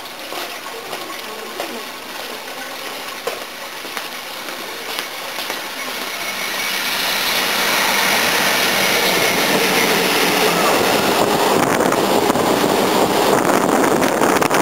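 EF64 1000-series electric locomotive hauling E233-series electric cars through a station without stopping. The train noise swells from about six seconds in, then becomes a steady, loud wheel-and-rail noise as the cars pass close by.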